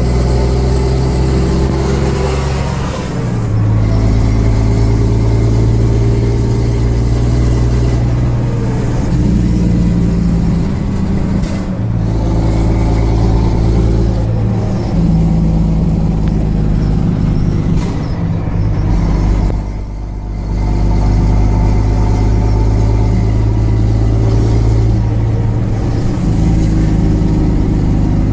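A Volvo tipper-grab lorry's 550 bhp diesel engine with a straight-through Truckmax exhaust, heard from inside the cab while driving: a steady, deep engine drone whose note steps and briefly dips several times.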